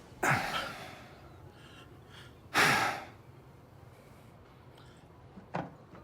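A man sighing heavily twice, long breathy exhales, then a short intake of breath near the end.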